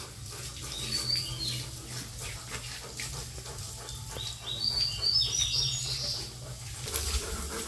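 A wet dog being handled and rubbed during its bath, with faint sounds from the dog. Short high chirps come about a second in and again between about four and six seconds in.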